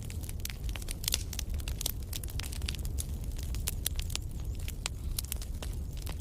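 Wood campfire crackling, with many sharp irregular pops and snaps over a steady low rumble.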